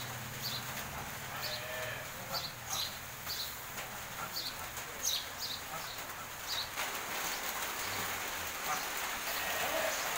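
Dairy cattle shed ambience: short high chirps repeating about twice a second, stopping about seven seconds in, over a steady background hiss.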